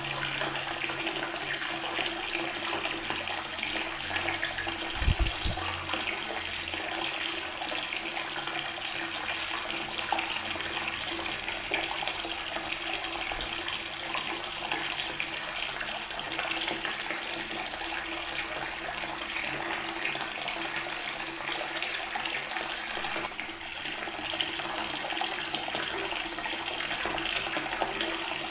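Water tap running steadily, its stream splashing onto natural stone. A brief low thump comes about five seconds in.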